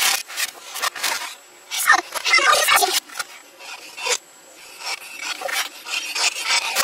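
A boy's screaming and keyboard pounding played backwards, heard as garbled, raspy, unintelligible bursts broken by short gaps, with a quieter stretch a little past the middle.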